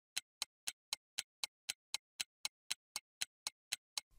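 Ticking clock sound effect: a crisp, even tick about four times a second against silence, stopping shortly before the end. It is a thinking-time timer that marks a pause for the viewer to work out the problem.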